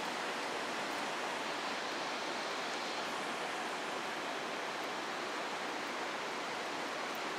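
Steady hiss of heavy rain falling and floodwater running across a flooded street.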